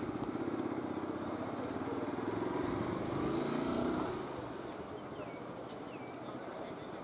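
A motor vehicle's engine running as it passes, growing louder for about four seconds and then fading away.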